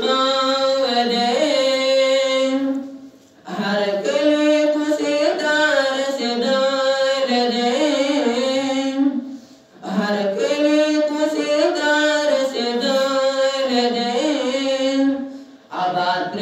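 A man chanting a Pashto nazm, an Islamic devotional poem, unaccompanied into a microphone. He sings in long melodic phrases with a short break for breath about every six seconds.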